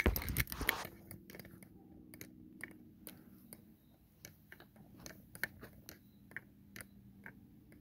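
Handling noise from belongings being gathered up, a burst of knocks and clicks in the first second, then scattered faint clicks and ticks at uneven spacing over a faint steady low hum.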